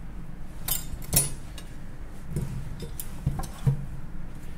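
A knife and cut daikon radish rounds being handled and set down on a wooden cutting board: a handful of sharp knocks and clinks, the loudest about a second in.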